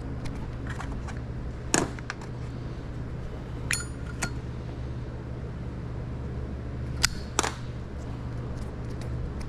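A few sharp clicks and one short ringing metallic clink from small parts and tools being handled on a metal workbench, over a steady low hum.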